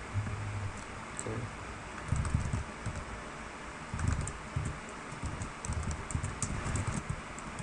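Typing on a computer keyboard: irregular runs of keystroke clicks, with dull low thuds among them, over a steady background hiss.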